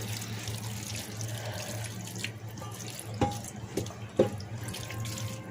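A utensil knocks three times against a Pyrex glass baking dish as pasta is spooned into it, about three, four and four and a half seconds in. Under the knocks runs a steady hiss and hum.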